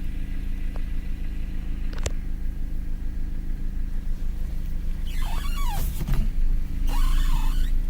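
Dodge Caliber squeaking: two drawn-out squeals that waver in pitch, about five and seven seconds in, over the car's steady low rumble, with a single sharp click about two seconds in.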